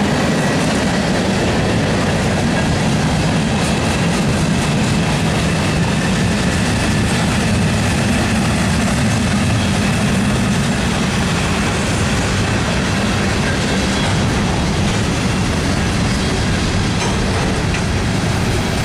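Freight cars of a CSX mixed manifest train rolling past: a steady rumble of steel wheels on the rails, with light clicking as the wheels pass over the rail joints.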